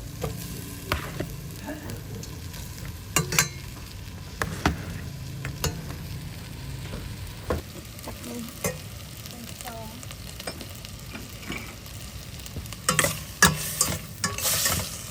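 Food sizzling in a pan while a utensil stirs it, with scattered sharp knocks and scrapes against the pan. Near the end comes a louder, denser stretch of clatter and sizzling.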